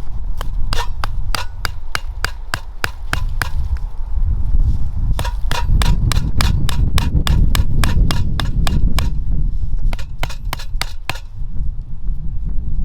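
Hammering: quick, evenly spaced blows, about four a second, in two runs with a short pause between them, thinning out near the end. A low wind rumble on the microphone runs underneath.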